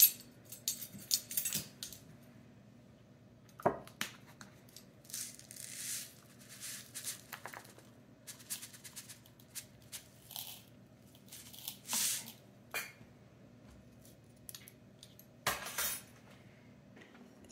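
Scattered light knocks, clinks and rustles of kitchen items being handled and set down on a countertop, over a steady low hum. The sharpest knock comes about four seconds in, with a louder clatter near the end.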